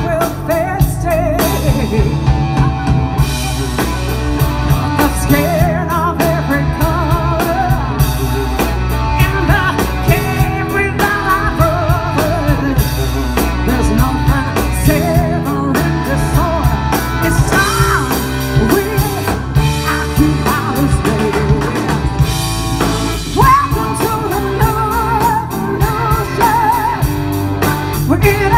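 A live blues-rock band playing through a PA: drum kit, electric guitars, bass and organ, with a woman singing.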